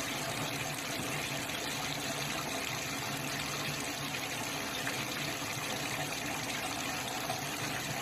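Water running in a steady stream from a kitchen tap's spout into the sink: the pipe draining its leftover water after the tank supply valve has been shut.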